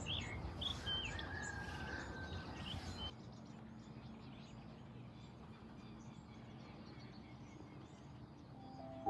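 Birds chirping and calling in short, repeated phrases over outdoor background noise. About three seconds in, the sound cuts to a quieter ambience with fainter, distant birdsong and a faint steady hum.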